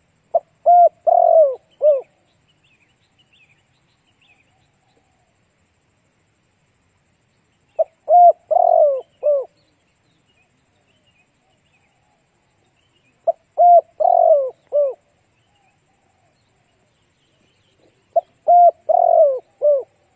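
Spotted dove cooing: four phrases of several notes each, repeating about every five seconds. Faint high chirps of small birds can be heard between the phrases.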